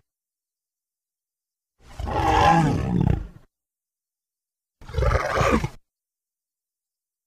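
Two roars performed with a person's voice as a dinosaur's creature sound effect: a longer roar of about a second and a half, then a shorter one about three seconds later, each starting and stopping abruptly.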